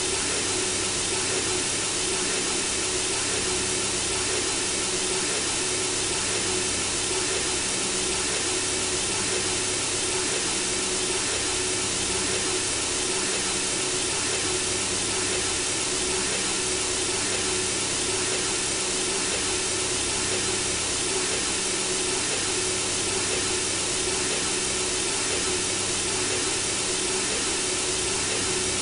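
Synthesizer-generated white noise: a steady, unchanging hiss with a faint low steady tone underneath.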